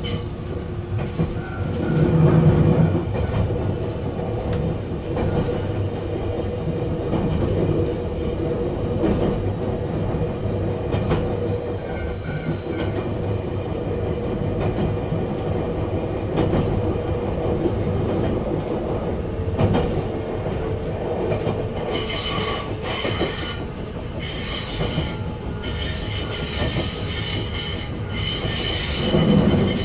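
Electric train running along the line, with steel wheels squealing on the rails and occasional clicks from rail joints. A high ringing squeal grows much stronger about two-thirds of the way through.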